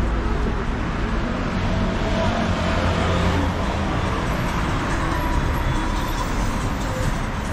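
Busy city street ambience: a steady low traffic rumble, with faint voices in the background.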